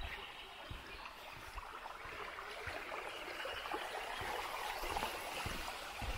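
Shallow rocky brook, the upper Lenne, burbling over stones under a footbridge. It grows louder about two seconds in, with faint footsteps on the path.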